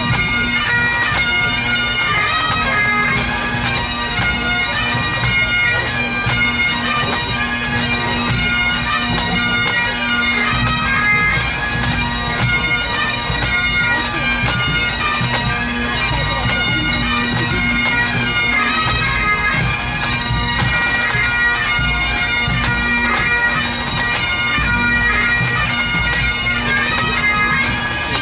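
Pipe band playing: several Great Highland bagpipes sound a melody over their steady drone, with snare, tenor and bass drums beneath.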